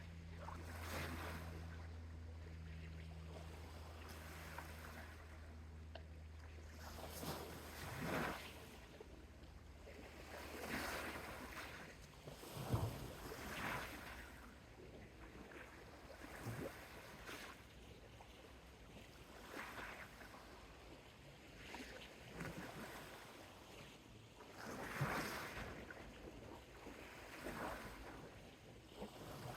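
Soft sea waves breaking and washing up a beach in irregular swells every couple of seconds, with a few louder washes in the middle and near the end. A low steady hum runs underneath for roughly the first third and then fades out.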